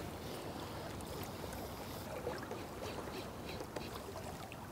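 Faint, steady waterside background noise of moving water, with a few light clicks.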